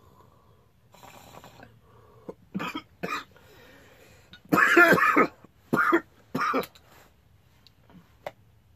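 A man coughing hard after inhaling bong smoke: two short coughs, a long loud hacking cough about halfway through, then two more coughs.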